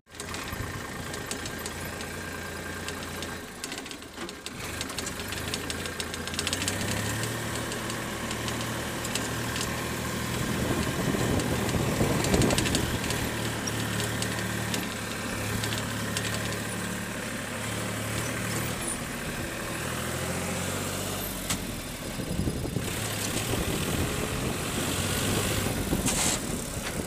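Diesel engine of a Sonalika DI 39 RX tractor running steadily while it tows a loaded trolley, with road and wind noise over it. The sound gets louder for a few seconds about halfway through.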